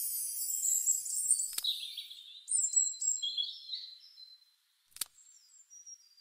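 High-pitched bird chirping and twittering that fades out a little past halfway, with two sharp clicks, one about a second and a half in and one about five seconds in.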